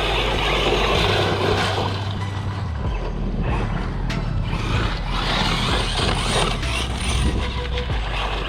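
Arrma Mojave and Traxxas X-Maxx electric RC trucks driving flat out, with a steady rush of motor and drivetrain noise.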